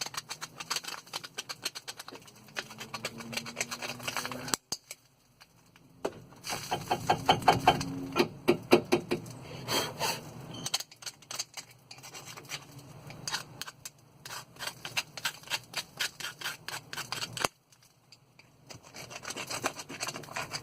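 Brush scrubbing corrosion and dirt off a car's front brake caliper in quick back-and-forth strokes, stopping twice briefly.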